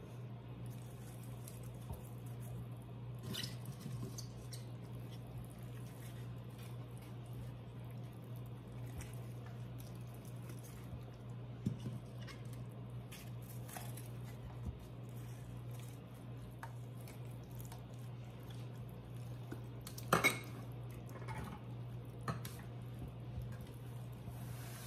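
Occasional light clinks of a wire roasting rack against its roasting pan as a raw turkey is pushed and stuffed on it, over a steady low hum. The loudest is a double clink about twenty seconds in.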